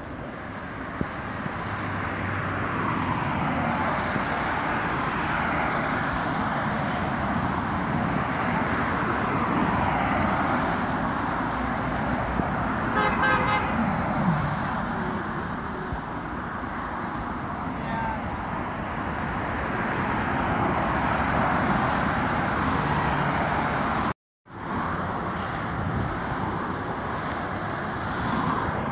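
Road traffic passing close by, mixed with the distant roar of a jet airliner's engines after touchdown, swelling and fading as vehicles go past. A short pitched tone sounds about 13 seconds in, and the sound cuts out for a moment near the end.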